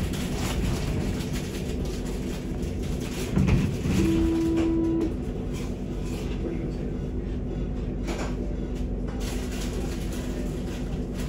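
Luas tram running between stops, heard from inside by the doors: a steady rumble of wheels on rail and running gear. A knock about three and a half seconds in, then a steady beep lasting about a second.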